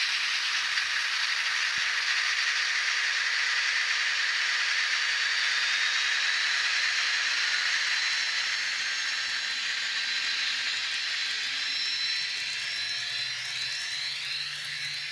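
Sound decoder in an N-scale V110 diesel locomotive model playing diesel engine sound through its tiny speaker: a steady, hissy running note. Near the end the engine note slides in pitch and a low hum comes in.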